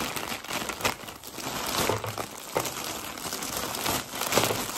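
A grey plastic mailing bag crinkling and rustling as hands handle and fold it, in irregular bursts with a few sharper crackles.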